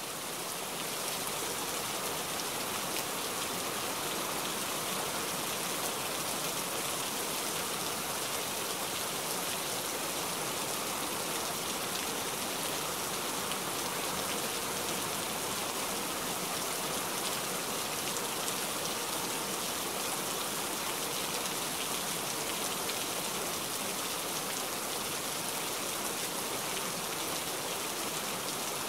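Steady heavy rain falling on a corrugated sheet roof and bare earth, with water streaming off the roof's edge; it swells in over the first second, then holds even.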